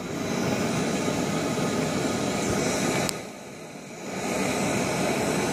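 MSR Pocket Rocket canister stove burning at full flame with a loud, steady hiss, under a stainless pot of water at a rolling boil. About three seconds in there is a click, and the sound drops for about a second before returning.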